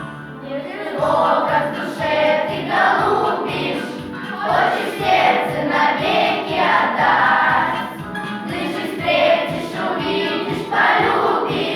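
Children's class choir singing a Soviet wartime pilots' song in phrases of a second or two.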